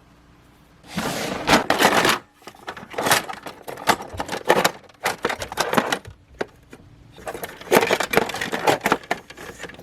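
Handling noise: rustling and clattering in bursts, with many sharp clicks, as objects are picked up and moved about.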